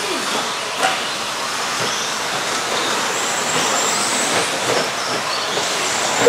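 Several 1/10-scale electric stadium trucks with 13.5-turn brushless motors racing on a dirt track: overlapping high motor whines rising and falling over a steady rush of noise, with a sharp knock about a second in.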